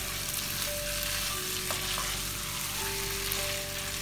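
Masala-coated chicken strips and curry leaves sizzling in hot oil in a nonstick pan as a spatula stirs them, with a couple of light spatula clicks against the pan about two seconds in.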